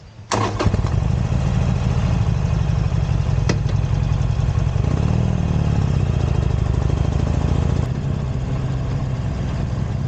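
Harley-Davidson Iron 883's air-cooled V-twin engine starting up about half a second in, then idling steadily with a deep, even beat.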